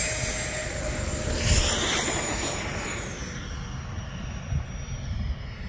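Electric ducted fan of an FMS F-86 Sabre 80 mm RC jet in flight, a steady whine that drops a little in pitch and fades about three seconds in.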